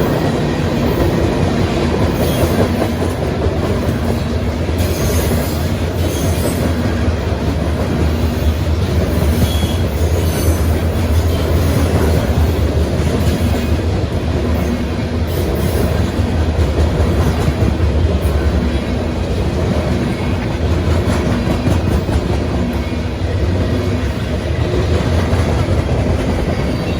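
CSX manifest freight train's cars rolling past, a steady loud rumble and clatter of wheels on rail, with a few brief high wheel squeals in the first ten seconds.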